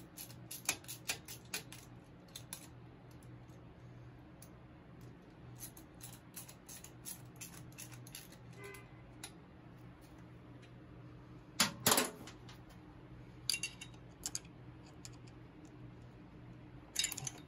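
Small metallic clicks and taps of hand work on a Shovelhead engine's intake manifold, a quick run of them at first and a louder clatter about twelve seconds in, over a faint steady low hum.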